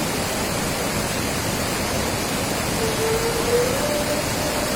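Floodwater rushing steadily, a dense unbroken roar of water. A short pitched sound dips and rises about three seconds in.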